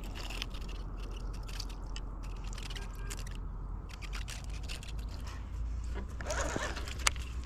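Fishing reel being cranked, reeling in a topwater lure: scattered light clicks and a short whirring burst near the end, with a sharp click just after. A steady low rumble runs underneath.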